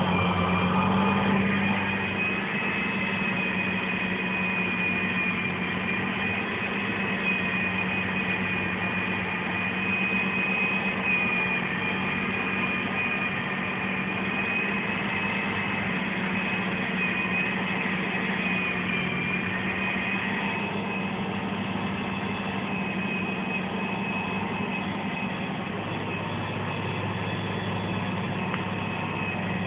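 Tractor engine running steadily under load, heard from inside a tractor cab, with a constant high whine over the low drone.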